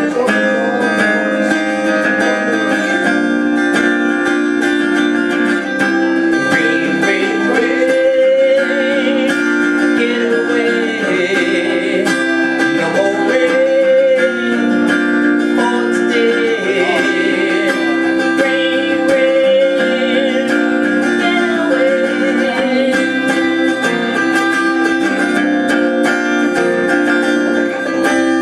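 Acoustic guitar strumming chords steadily, with a wavering melody line over it through the middle of the passage.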